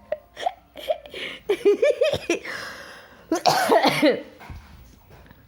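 A toddler's short coughs and brief voiced sounds, in several separate bursts, the loudest about three and a half seconds in.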